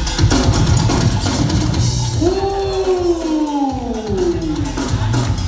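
Loud dance music for a breaking battle, with a heavy drum beat. About two seconds in the beat drops out and a long tone slides downward in pitch for about two and a half seconds.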